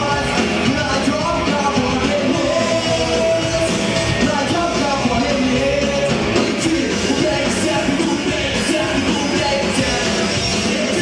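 Punk rock band playing live: electric guitar, bass guitar and drum kit, with a male voice singing over them.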